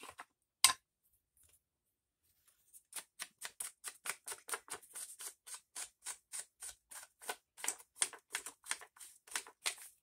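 A sharp click about half a second in, then, after a short pause, quick repeated brushing strokes at about four a second: an ink pad or blending tool being worked over the edges of a paper cut-out to ink it.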